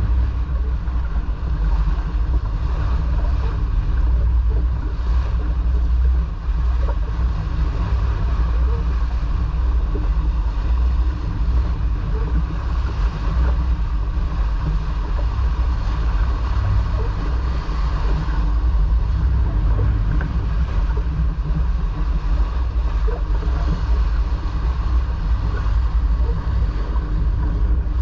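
Steady wind buffeting the microphone over the rush of water along a sailboat's hull as it sails.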